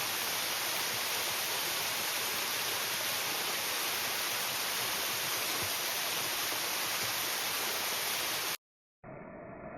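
Waterfall rushing: a loud, steady wash of falling water. It cuts off abruptly near the end, and after a moment of silence a quieter, muffled hum with a few faint steady tones begins.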